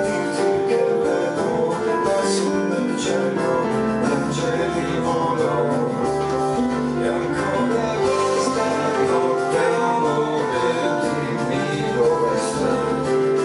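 Instrumental passage of a piano-led song: piano and keyboards playing sustained chords and a melody.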